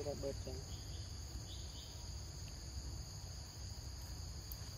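Steady high-pitched insect chorus over a low rumble, with a few faint chirps about a second and a half in.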